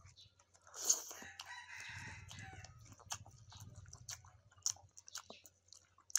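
Close-up eating sounds: chewing noodles and beef, with small wet clicks and crackles throughout. A rooster crows in the background for about two seconds, starting about a second in.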